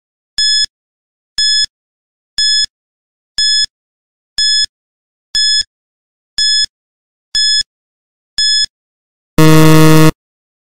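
Countdown timer beeps: nine short, high electronic beeps about once a second, then a louder, lower buzzer for most of a second as the count runs out.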